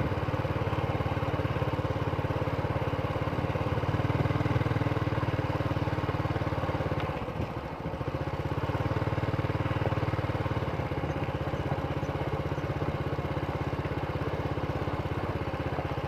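Motorcycle engine running steadily under way, heard from the rider's seat; it eases off briefly about halfway through, then picks up again.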